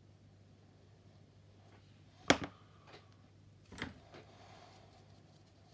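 Hobby knife and a small plastic kit part handled over a cutting mat: a sharp click a little over two seconds in and a softer one near four seconds, with a few faint taps, over a low steady room hum.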